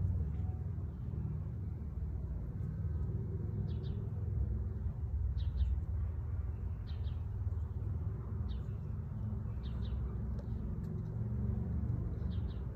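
Steady low outdoor rumble, with a small bird giving short high chirps every second or two from a few seconds in.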